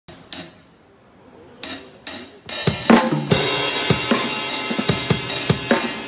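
Acoustic drum kit with Sabian cymbals played with sticks. It opens with a few separate cymbal hits, then from about two and a half seconds in settles into a steady groove of bass drum and snare strikes under ringing cymbals.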